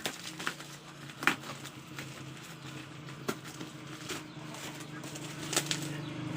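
Cardboard box and its packaging being opened and handled by hand: scattered sharp taps and crinkles, over a steady low hum.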